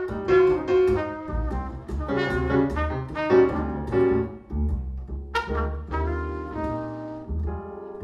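Jazz music with a brass lead, trumpet-like, over low bass notes and piano.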